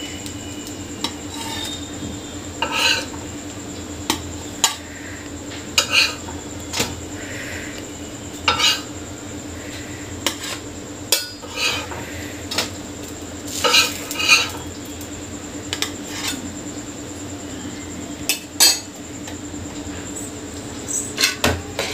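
Steel spatula scraping and clicking against a dosa tawa and a plastic plate as toasted bread slices are lifted off and set down. The strokes come in short, scattered bursts every second or two.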